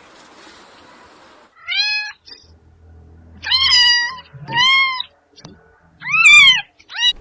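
Kitten meowing about five times with short pauses, the first about two seconds in; each meow is high-pitched and rises then falls in pitch.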